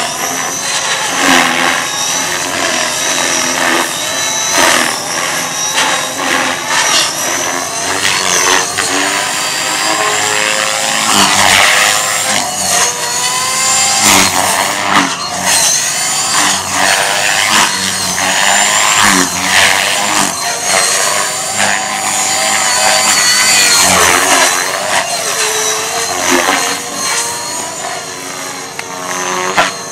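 Blade 450X electric RC helicopter flying aerobatics: the whine of its motor and rotor blades swoops up and down in pitch continually, with whooshing blade sweeps as it manoeuvres.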